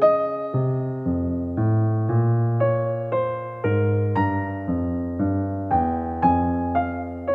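Background music only: a keyboard melody with piano-like struck notes, about two notes a second.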